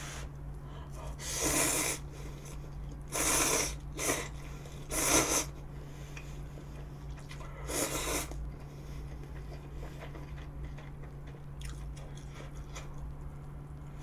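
A person slurping mouthfuls of instant noodles in five short, loud slurps over the first eight seconds, then quieter chewing and a sip of broth, over a steady low hum.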